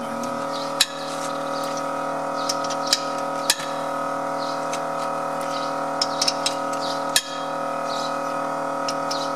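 A wrench on the wheel's lug nuts, checking that they are tight, gives a few sharp metallic clicks about a second or two apart, over a steady even hum.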